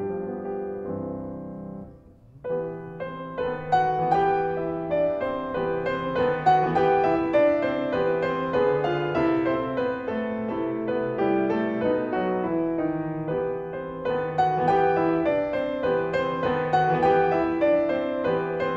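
Background piano music: a gentle piece of held notes and chords that fades briefly about two seconds in, then picks up again and plays on.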